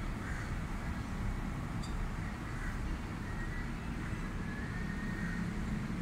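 Steady low rumble of outdoor background noise, with faint thin high chirps coming and going.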